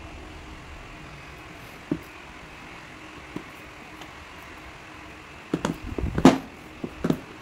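Tablet box and packaging being handled: a few soft knocks, then a cluster of taps and rustles about six seconds in, over a steady background hum.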